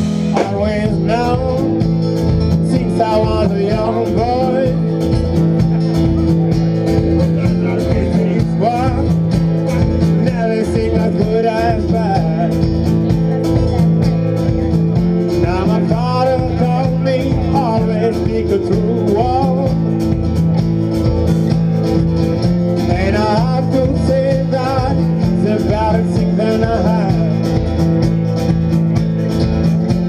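Live band playing a song: guitar and drum kit keeping a steady beat, with a voice singing over them.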